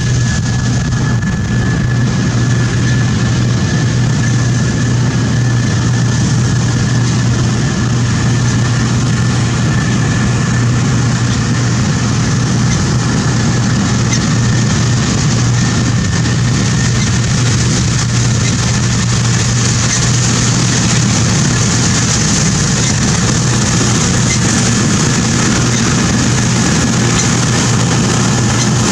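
Case IH 2388 combine running steadily while harvesting beans: a constant low engine hum with a thin, steady high whine and a broad rushing hiss from the threshing machinery.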